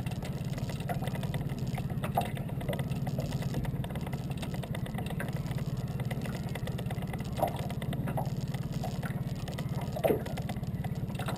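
Outboard motor idling steadily, a low even hum with a fine regular pulse. A few faint knocks come through over it.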